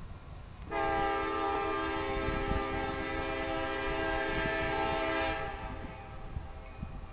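Union Pacific diesel locomotive's air horn sounding one long blast of several notes together, starting abruptly about a second in, held for about four and a half seconds and then fading, over a low rumble.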